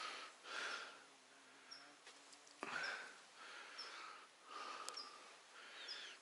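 A person breathing and sniffing close to the microphone: about five soft breaths spread a second or so apart.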